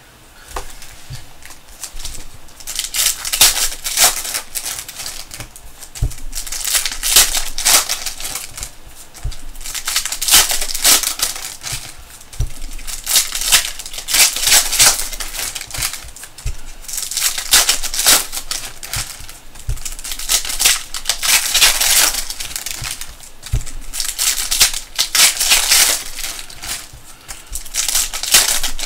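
Prizm basketball trading-card packs being torn open: the foil wrappers crinkle and rustle in repeated bursts every second or two.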